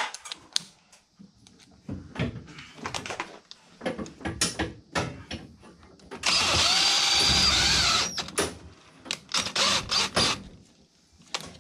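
Cordless drill run for about two seconds, its motor whine dipping and recovering under load as the bit turns into a plastic fitting on a furnace's sheet-metal cabinet. Handling clicks and knocks come before and after.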